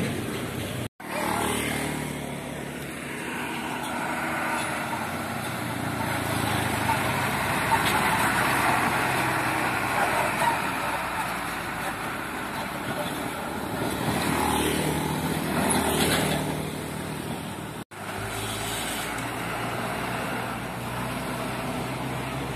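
Road traffic passing close: a large fuel tanker truck's diesel engine running as it drives by, with motorcycles. The sound swells and fades as the vehicles pass and breaks off abruptly twice.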